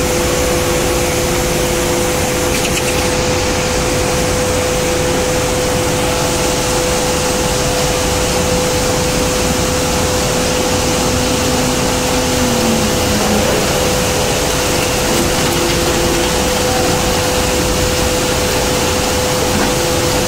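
Steady, loud industrial din of a steel billet continuous casting machine running: an even rushing noise with a constant droning hum.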